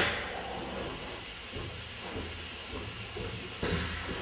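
Orbital stretch wrapping machine running while it wraps stretch film around a bundle on its conveyor: a steady low machine hum, a sharp click right at the start, and a burst of hiss near the end.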